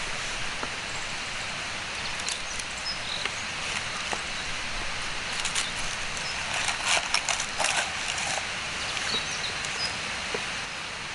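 Outdoor ambience: a steady hiss with a cluster of sharp crackles and clicks about six to eight seconds in, and a few short high chirps.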